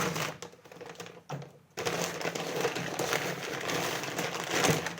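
Packaging crinkling and rustling as a parcel is handled and opened, quieter at first and then steady and louder from about two seconds in.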